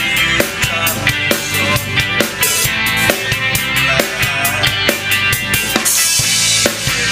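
A rock band playing, with the drum kit up front: a steady kick and snare beat over bass and guitar, and a cymbal crash about six seconds in. The drums are a DW Collectors Series kit in waterfall bubinga.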